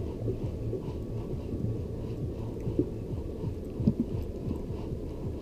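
Low, uneven rumble with a few soft thumps from the inflatable boat as it drifts, and over it a faint, even ticking, about three or four a second, of a spinning reel being cranked to retrieve a topwater lure.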